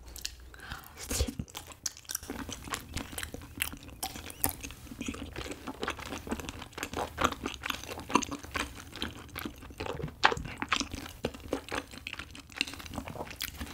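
Close-miked chewing of a piece of chewy Korean rice cake filled with sweet red-bean paste (angeum jeolpyeon), with a steady run of small wet, sticky mouth clicks.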